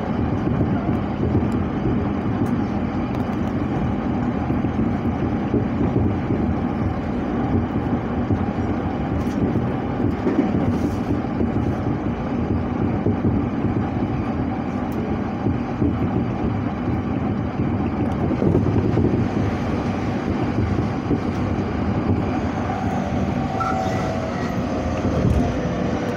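Electric commuter train running at speed, heard from inside the passenger car as a steady rumble. Near the end a faint whine joins it as another train passes on the adjacent track.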